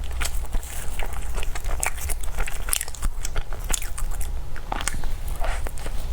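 Close-miked mouth sounds of eating dessert: biting and chewing, with many irregular small crunchy and sticky clicks, over a steady low hum.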